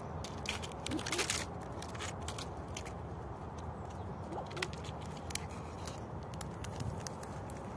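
Red squirrels scrabbling on pine bark and taking sunflower seeds from a hand: scattered sharp clicks and scratches, with a quick flurry about a second in, over a steady low rumble.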